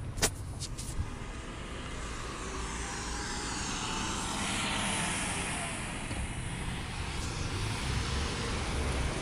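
A passing vehicle, its noise swelling to a peak about halfway through and then easing, over a low rumble; a sharp click just after the start.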